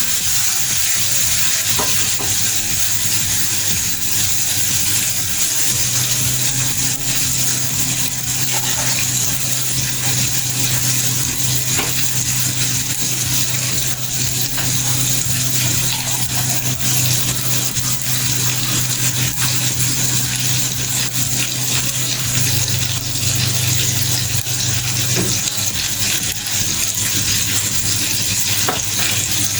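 Rohu fish pieces frying in hot mustard oil in a pan: a steady, continuous sizzle.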